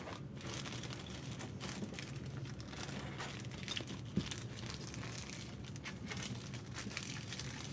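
Thin clear plastic bag being unfolded and smoothed out by hand, crinkling in many small, irregular crackles.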